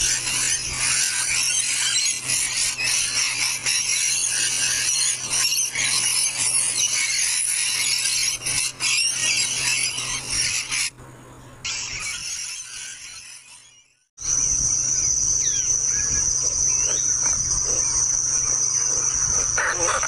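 A flock of rainbow lorikeets chattering and screeching together, a dense high-pitched racket that fades and cuts off about 14 seconds in. After that, a steady high insect trill with a few short chirps over it.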